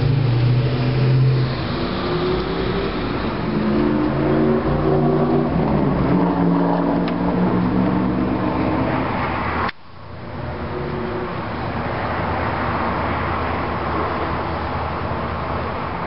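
Street traffic: vehicle engines running with tones that shift in pitch over steady road noise. The sound drops out abruptly about ten seconds in, then builds back up.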